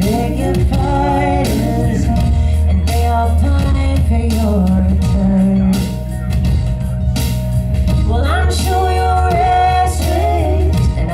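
Live music: a woman singing lead into a handheld microphone over electronic backing with a deep, steady bass.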